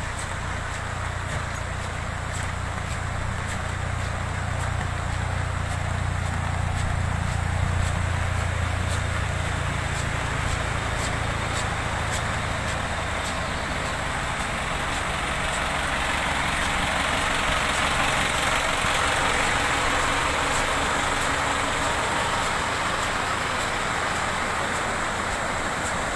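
Low hum of idling car and truck engines that fades out about halfway through. Under it runs a steady hiss of rain and rushing floodwater, which grows louder in the second half.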